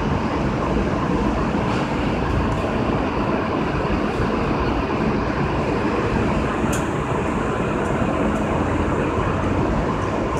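Steady noise inside the cab of an R160A subway car, with a few faint clicks scattered through it.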